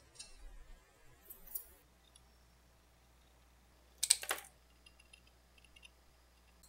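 Small hard objects clicking and tapping on a hard surface, with one louder rattling clack about four seconds in.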